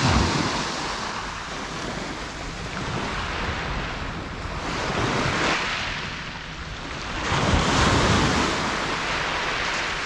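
Small waves breaking and washing up over a pebble beach, swelling and easing three times, the last surge the loudest, with wind rumbling on the microphone.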